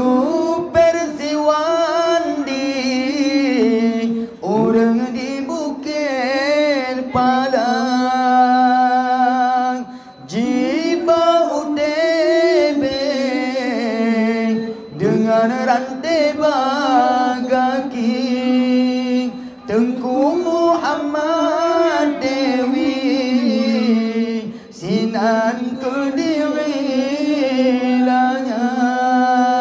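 Two men singing an unaccompanied Acehnese narrative chant into microphones: long drawn-out melismatic phrases with a wavering, ornamented pitch, each phrase breaking off briefly before the next begins, about every five seconds.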